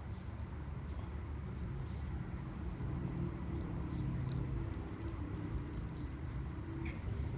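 Faint chewing and crunching of sliced apple, a few soft crisp clicks over a steady low hum.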